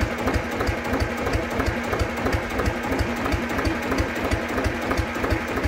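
Freshly overhauled 1952 Gardner 2LW two-cylinder diesel engine running steadily with an even, rapid beat. It is about four hours into its test run and running without problems.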